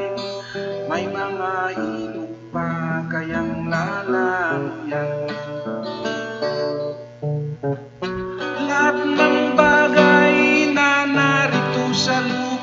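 A man singing to his own strummed acoustic guitar, with a brief break in the playing about seven and a half seconds in.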